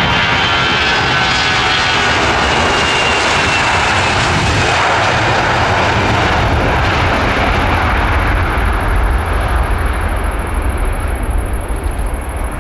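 Jet airliner's engines passing close by: loud jet noise with a whine that falls slightly in pitch over the first few seconds, giving way to a deeper rumble that eases a little near the end.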